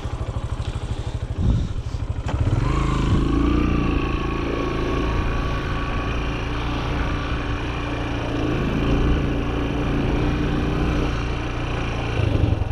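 Farm motorbike engine idling, then picking up and running steadily as the bike moves off, with a faint whine over the engine.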